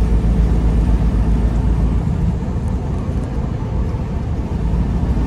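Steady low engine and road rumble heard inside the cab of a semi truck cruising at highway speed.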